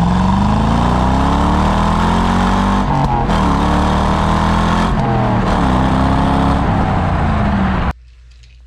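C5 Corvette V8 heard loud at its exhaust tips under acceleration. The engine note climbs, drops sharply twice, about three and five seconds in, as with gear changes, then climbs again. It cuts off suddenly near the end.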